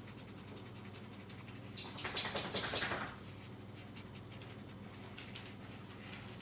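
Cotton rubbing pastel chalk into the paper of a photographic print. There is a faint scratchy rubbing throughout, and about two seconds in comes a louder run of about five quick scratchy strokes.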